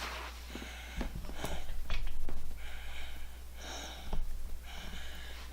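A man's heavy, wheezy breathing in several long breaths, with a few sharp knocks from handling the parts.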